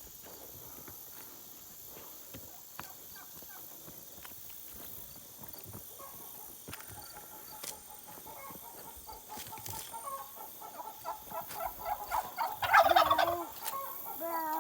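Domestic fowl calling, with one loud gobble-like burst about three-quarters of the way in and shorter arching calls near the end.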